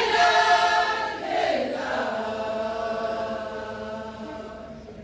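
A performer's voice chanting a long drawn-out cry of "Jailer!", held high for about a second and a half, then sliding down into a long lower note that fades near the end.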